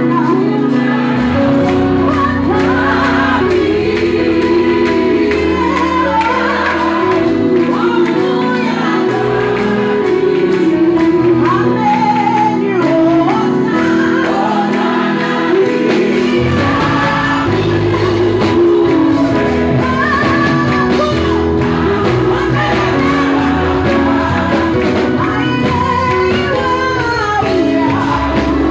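Gospel praise singing: a woman leads on a microphone, with backing singers and instrumental accompaniment carrying a steady bass line, in a large hall.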